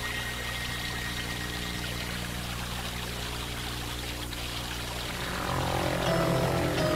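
Water pouring steadily from a lion-head spout into a bath, over a low sustained music drone. Near the end the music swells with higher notes.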